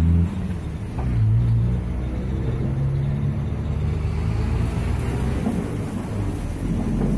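Low, steady rumble of a running vehicle engine.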